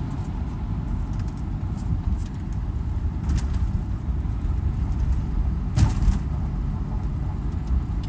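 2008 Volvo XC90 (non-turbo) running, a steady low rumble with a few short clicks and a sharper knock about six seconds in.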